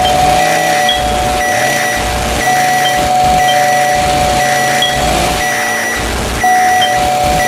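A dense, loud mix of layered sound effects over a song: a steady high tone, short repeated beeps, vehicle-like engine noise and low thuds recurring about every one and a half seconds.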